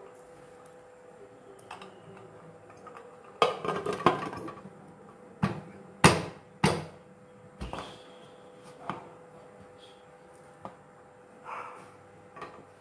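Aluminium pressure cooker lid being fitted and closed, with the whistle weight set on its vent: a series of metal clanks and knocks, the loudest few in the middle.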